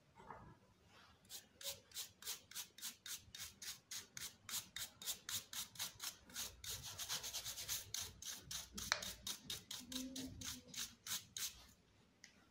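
Stiff bristle brush scrubbing flour off the face of a hand-turned stone grain mill (chakki), in quick regular strokes, about three a second.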